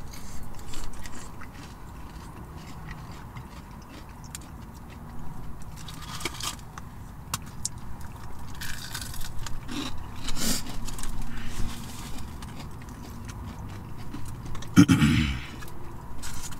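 Two people eating crispy fried chicken wings: chewing and crunching, with light rustling and scraping of the food packaging, and a short louder noise about fifteen seconds in.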